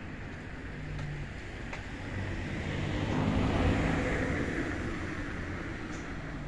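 A motor vehicle passing by, its engine and road noise swelling to a peak about halfway through and then fading.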